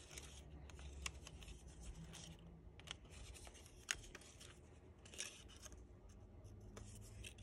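Faint scratching of a metal ball stylus pressed and rubbed around the edges of paper petals, shaping and embossing them, with a few light clicks and paper rustles from handling the petals.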